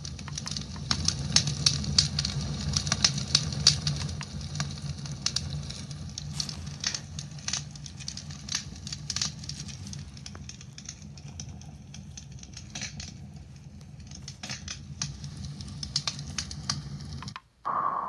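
Recorded campfire sound from a Housbay white noise machine's speaker: irregular crackling and popping over a low steady rumble. It cuts out briefly near the end as the machine switches to its next sound.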